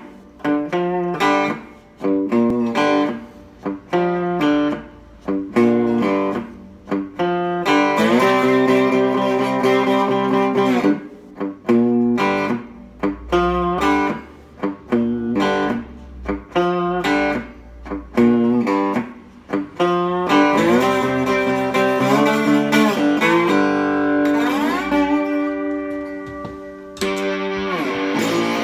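Birdwood Lightning Boy three-string cigar box guitar played with a slide: a choppy riff of short plucked notes, held ringing chords from about eight seconds in, and notes gliding in pitch near the end.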